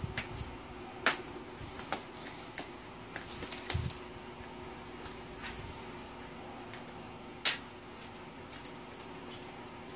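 Scattered light clicks and taps of a bicycle floor pump's hose head being handled and fitted onto the tyre valve, with one sharper click about seven and a half seconds in, over a steady faint hum.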